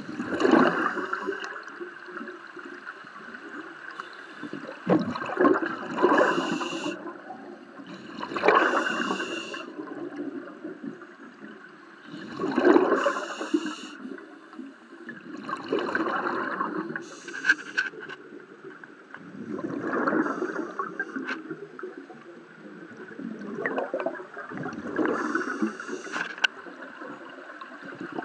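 Scuba regulator breathing heard underwater: a rush of exhaled bubbles every few seconds, some breaths with a short hiss from the regulator, over a steady watery background.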